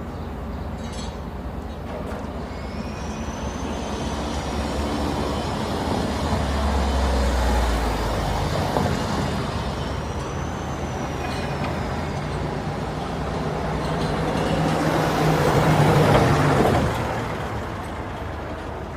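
Road traffic with heavy vehicles such as trucks or buses passing close, the noise swelling twice and loudest a couple of seconds before the end. Two faint high squeals rise and fall over it.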